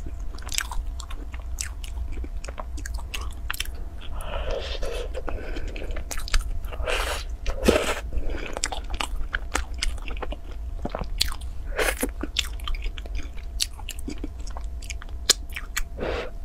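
A person biting into and chewing a pastry, a run of many small sharp crackles and mouth clicks with a few longer, softer chewing sounds in between.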